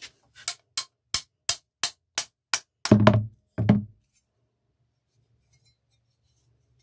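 Small hammer tapping on a knife handle to knock it off the tang of an old rusty kitchen knife: about seven sharp, even taps at roughly three a second, followed by two heavier, deeper thuds.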